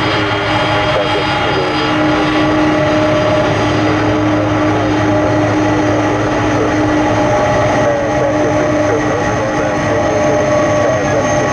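A Boeing 767's twin jet engines run steadily as the airliner moves past close by. It is a continuous jet noise with steady whining tones over it, holding at one level throughout.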